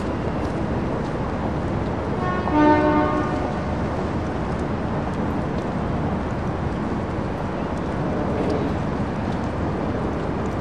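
Steady urban background noise with a single horn blast, a steady tone about a second long, a little over two seconds in.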